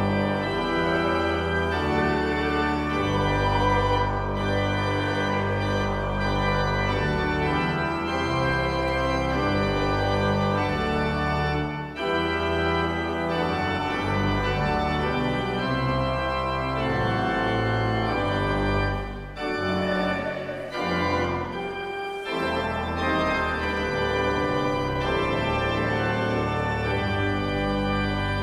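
Organ playing sustained chords over a moving bass line, as music for the offering.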